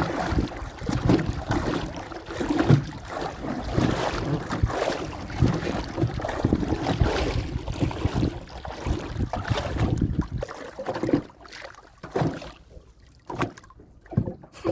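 Busy handling noise and water sounds from a small boat as a prawn trap is hauled up, with knocks and wind on the microphone; it quiets to scattered clicks about ten seconds in.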